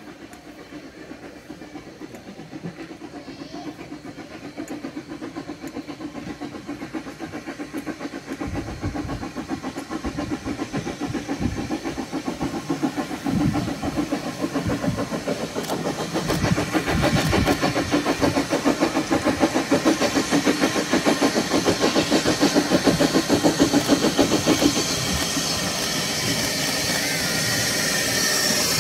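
Kerr Stuart 0-6-0 tank steam locomotive working uphill with three coaches, its regular exhaust beats growing steadily louder as it approaches. Near the end the beats give way to a steady hiss as it draws alongside.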